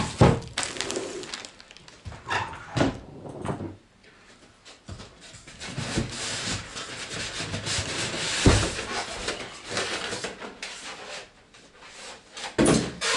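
Monitor packaging being handled: a plastic bag rustling and crinkling and foam packing pieces rubbing and squeaking, with a few knocks against the cardboard box, loudest about 8 seconds in.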